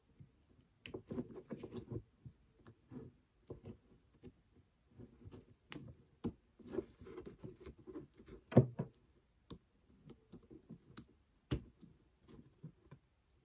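Small plastic and metal parts of a cordless drill's brush-holder plate being handled and pressed into place: irregular light clicks, taps and rustles, with one sharper click about two-thirds of the way through.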